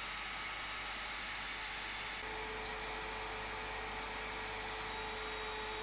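Table-mounted router with a 6 mm bit running at speed, cutting a slot through 18 mm MDF: a steady high-speed motor whine and hiss. Its pitch shifts abruptly about two seconds in.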